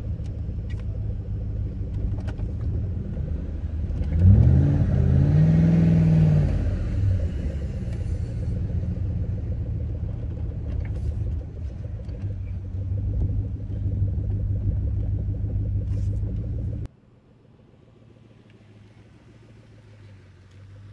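Ford Mustang SVT Cobra's supercharged 4.6-litre V8 running, heard from the open-top cabin, with one rev about four seconds in that rises in pitch and falls back, the loudest part. About 17 seconds in the sound drops off suddenly to the same engine faint and distant.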